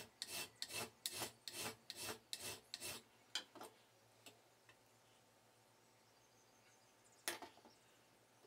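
Hand file rasping across a piece of metal angle held in a bench vise, being filed to bring its edge square. There are about eight quick, even strokes at roughly two and a half a second, two lighter strokes, then a stop, and one more short, sharp scrape about seven seconds in.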